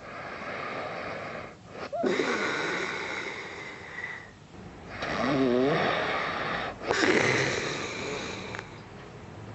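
A man snoring in his sleep while wearing an anti-snoring tongue sleeve: a run of rough, wheezy breaths about every two seconds, one near the middle with a rattling snore. The sleeve has not stopped the snoring.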